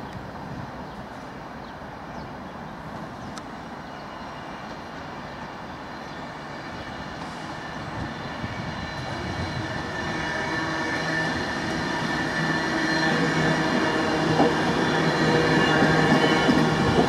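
Class 390 Pendolino electric train running slowly into a station, its carriages rolling past on the rails. The sound grows steadily louder, and a steady whine strengthens through the second half.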